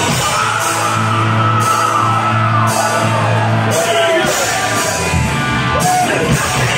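Hard rock band playing live, heard from within the audience: a long held low note under loud guitars and cymbals, with high sustained notes that bend and slide in pitch over it, and yelling.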